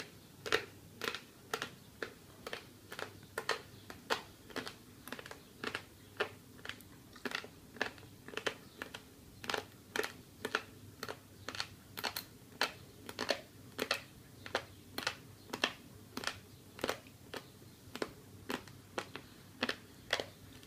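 Dry, uncooked spaghetti being crunched and chewed, with short sharp crunches at about two a second.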